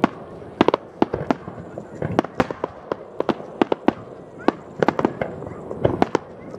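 Aerial firework shells bursting in quick succession: a dense, uneven run of sharp bangs and cracks, several a second, as multiple shells go off over the harbour at once.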